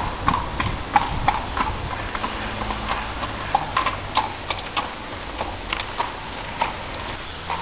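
Horse hooves clip-clopping: an uneven series of sharp knocks, two or three a second.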